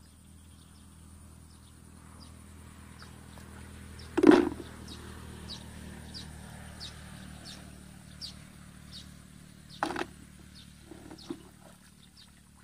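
Hands splashing and groping in shallow muddy water while feeling for fish, with two louder splashes about four and ten seconds in. Short high chirps repeat throughout over a steady high whine.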